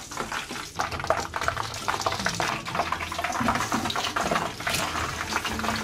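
Hot oil in a saucepan bubbling with a dense, steady crackle as hand-cut potato fries are dropped in to deep-fry.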